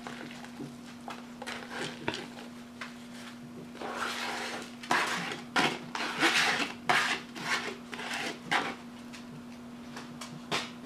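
Chopped onion, bell pepper and serrano scraped and tapped off a disposable plate into a glass baking dish of ground beef: a run of irregular soft scrapes and knocks, busiest around the middle, over a steady low hum.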